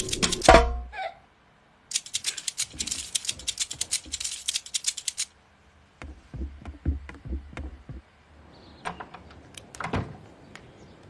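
Background music made of rapid percussive ticks and clicks with some low thumps, starting and stopping in sections with brief silences between.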